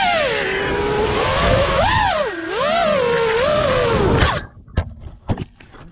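Brushless motors of a 6S FPV freestyle quadcopter whining, their pitch rising and falling with the throttle. The whine cuts off about four seconds in, followed by a few sharp knocks as the quad comes down in the grass.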